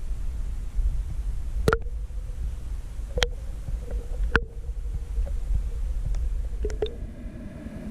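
Underwater audio from a spearfishing dive: a steady low rumble with three sharp clicks, each ringing briefly, about one to one and a half seconds apart, and two fainter clicks near the end.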